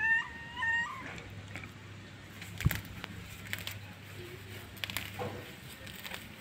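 A kitten mewing twice in quick succession, two short high cries, followed by a sharp knock about two and a half seconds in and a few faint clicks.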